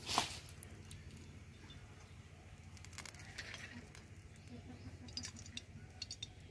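A short crackle as the plastic cap comes off a bottle of cooking oil, then oil poured in a thin stream into an empty iron kadai: a faint trickle with scattered small clicks.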